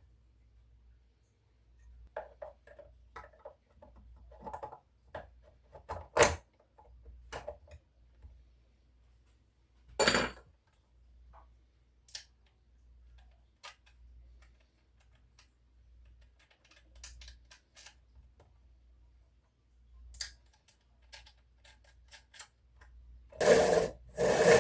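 Chainsaw parts being handled and fitted: scattered metal clicks and clinks, with two sharp knocks about six and ten seconds in, and a few loud scraping strokes near the end.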